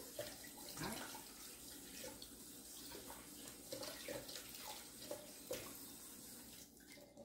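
Kitchen tap running steadily into a sink, with a few faint knocks and clicks from handling at the counter. The water stops near the end.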